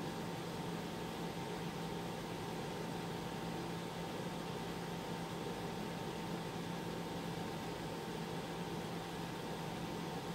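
Steady hiss with a low electrical hum and a faint higher steady tone: the background noise of an audio recording, with no other sound.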